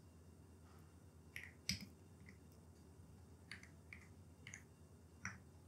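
Near silence broken by about half a dozen faint, sharp clicks spread over a few seconds: taps from typing a search into a phone.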